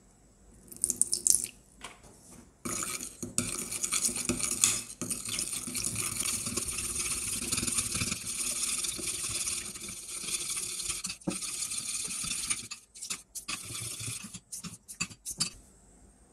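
A red plastic spoon stirring toothpaste and water in a glass bowl, scraping and sloshing against the glass for about ten seconds, then a few separate knocks as the stirring stops. A brief splash of water poured from a plastic bottle comes about a second in.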